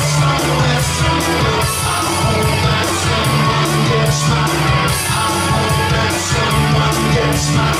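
Live rock music: a man singing over an amplified Stratocaster-style electric guitar, with a steady beat marked by cymbal hits.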